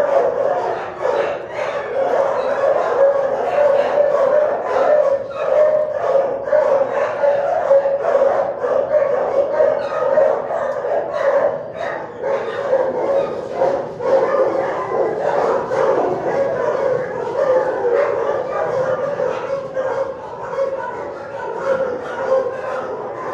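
Many shelter dogs barking and yipping at once in the kennel building, a dense, unbroken din of overlapping barks.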